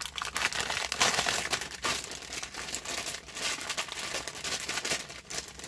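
Plastic parts bags and box packaging crinkling and rustling as they are handled, with irregular crackles throughout.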